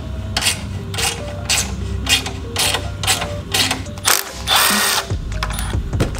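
Milwaukee cordless power tool working a bolt on a go-kart steering column: a string of ratcheting clicks about two a second, then a brief loud burst of the tool running about four and a half seconds in.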